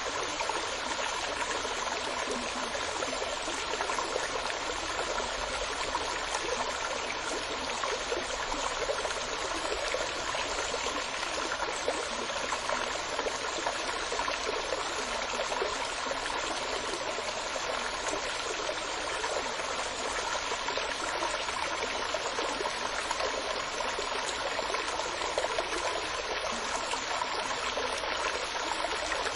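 Running water, a continuous stream-like flow with an even, unbroken rush.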